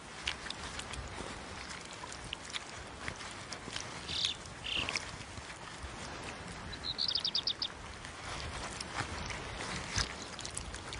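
Outdoor ambience of soft rustling and small scratches as a bearded vulture bathes in loose red soil. Brief high bird chirps come about four and five seconds in, and a quick high trill about seven seconds in.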